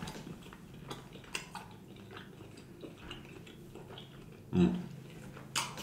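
Quiet pause filled with faint mouth clicks and lip smacks from a man between bites, with a short hummed 'mm' about four and a half seconds in.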